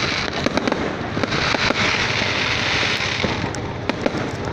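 Fireworks display going off without pause: many overlapping bangs and crackles.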